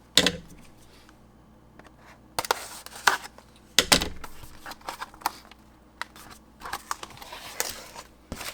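Hands handling packaging and small parts on a desk while opening a keyboard acoustic upgrade kit: a few sharp clicks and knocks, the loudest about four seconds in, with light scraping and rustling between.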